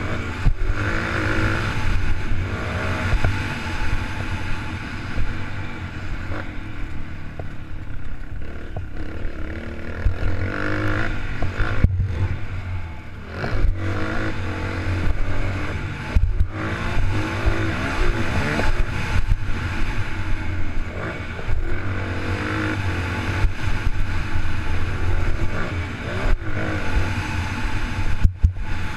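Honda motocross bike engine revving hard and easing off again and again as it is ridden around the track.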